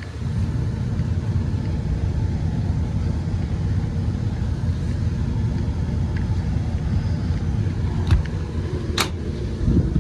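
Steady low rumble of rooftop fan machinery with wind buffeting the microphone; a click about eight seconds in and a sharper knock about a second later.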